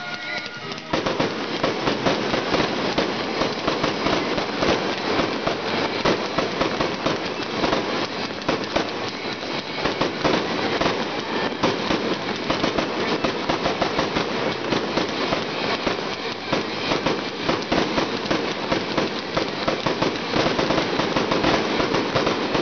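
Aerial fireworks going off in a dense, continuous barrage of bangs and crackling stars, many reports a second with no pause.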